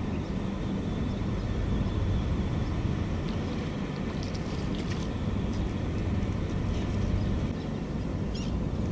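Steady low rumble of distant city traffic, with a few faint, short high-pitched sounds over it.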